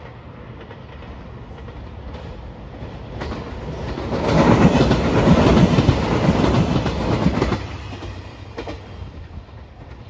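JR Shikoku 2700 series three-car diesel limited-express train passing close by, its wheels clattering over the rails. It builds from about three seconds in, is loudest for about three seconds, then fades as it moves away.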